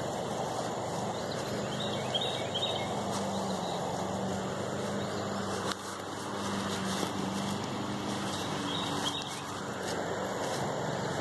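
A steady rushing noise with a low engine-like drone underneath, and faint high chirps twice, about two seconds in and near nine seconds.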